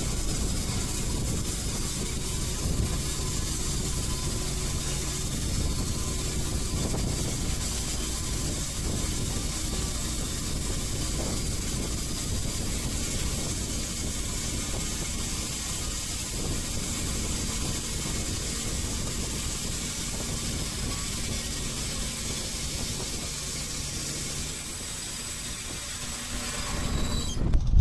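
Bandsaw sawmill running steadily under engine power, with a continuous hiss over a low engine hum; it cuts off abruptly near the end.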